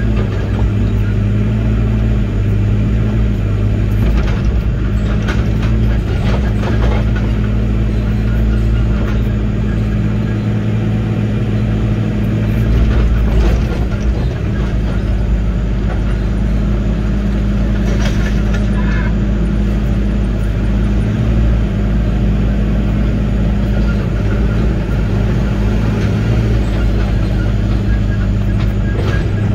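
Heavy-equipment diesel engine running at a steady speed, with a few scattered clanks and knocks from the machine at work.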